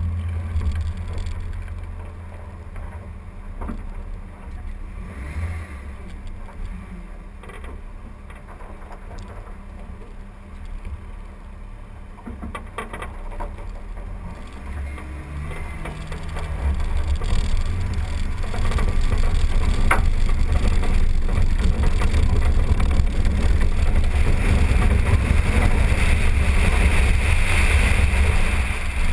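2012 Jeep Wrangler driving a dirt trail, heard from a camera on its front fender: a low engine and tyre rumble with wind on the microphone, growing clearly louder about halfway through.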